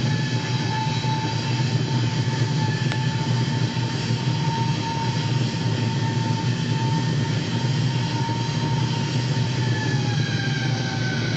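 Steady vehicle engine rumble with a high whine that slowly drifts down in pitch near the end.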